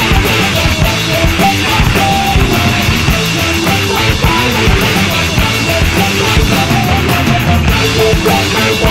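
Rock music with a driving drum kit and guitar.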